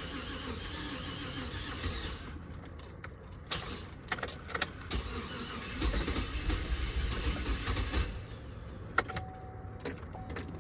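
GMC Yukon engine being cranked on the starter in two tries after starting fluid was sprayed into the throttle body, trying to fire briefly but not staying running. This is the sign that the engine is getting no fuel from the pump, which the mechanic takes for a failed fuel pump module. A few clicks follow near the end.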